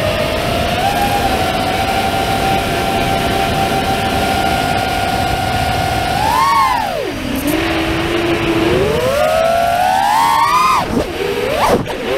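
FPV quadcopter's brushless motors whining at a steady pitch during a low cruise, then swooping up and down as the throttle is cut and punched, with quick sharp rising and falling whines near the end. Wind rush on the onboard camera's microphone sits under it.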